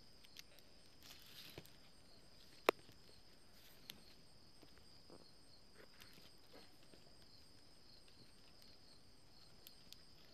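Faint rustling and light ticking of stiff plastic weaving strips handled and threaded by hand, with one sharp click a little under three seconds in.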